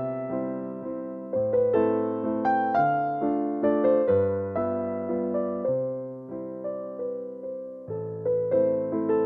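Background piano music: a melody of struck notes, each ringing and fading before the next.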